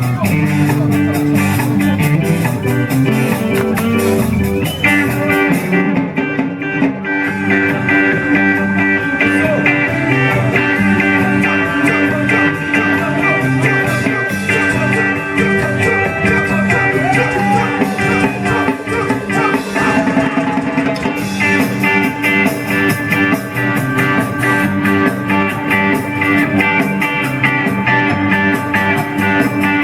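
Ska band music playing, with guitar prominent.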